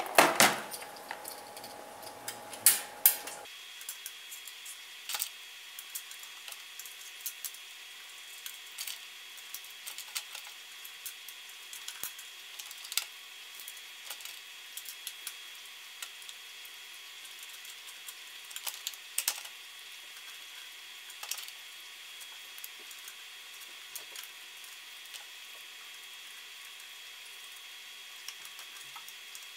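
Hand-handling of small hardware: scattered clicks and taps of small metal parts in a clear plastic parts box and against a bracket and aluminum extrusion, louder and busier in the first few seconds, with a faint steady high whine behind.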